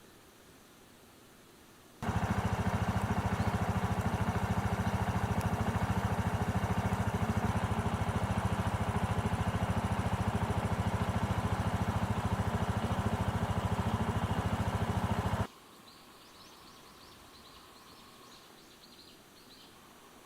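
A small engine running steadily at constant speed, with a fast even pulse; it starts abruptly about two seconds in and stops abruptly near the end. Faint bird chirps follow.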